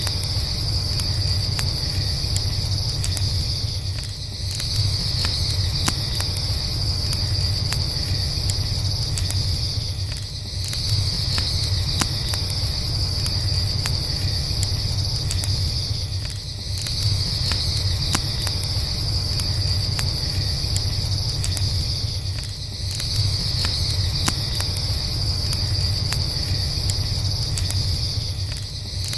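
A steady high chorus of crickets that drops out briefly about every six seconds, over a low rumble, with faint campfire crackles.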